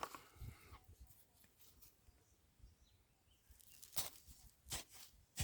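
Quiet outdoor background, broken near the end by three short knocks a little under a second apart.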